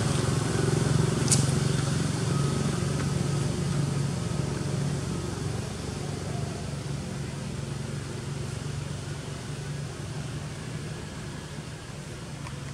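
A motor vehicle's engine hum, low and steady, slowly fading away. A short sharp click sounds about a second in.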